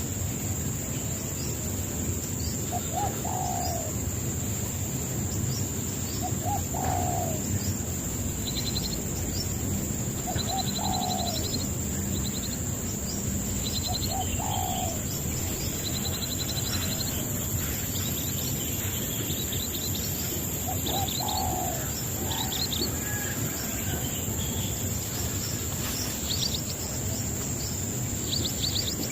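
Birds calling: a short low call that drops in pitch repeats about every three to four seconds, over high quick chirps and trills.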